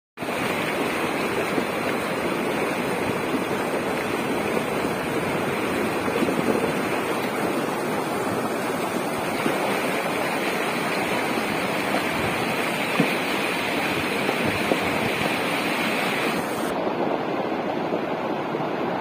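Muddy floodwater of a mountain river in spate rushing over stones: a steady, loud, unbroken rush of water.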